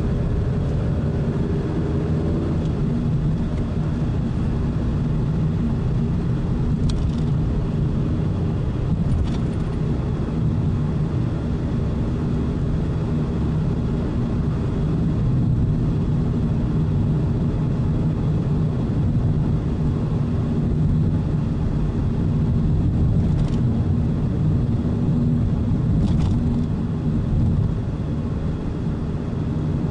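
Car driving at a steady speed, heard from inside the cabin: a steady low rumble of engine and tyres on the road.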